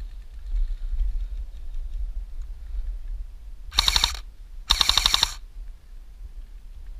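Airsoft rifle firing two short rapid-fire bursts about a second apart, the second slightly longer.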